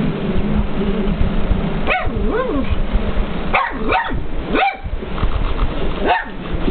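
Pug barking at the television: a run of short, sharp barks starting about two seconds in, with three in quick succession in the middle and one more near the end.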